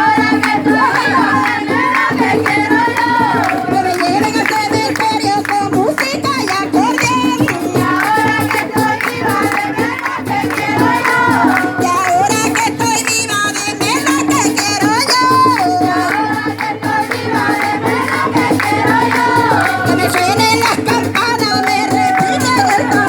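Music: a group singing a folk song to instrumental accompaniment, with a shaken percussion rattle.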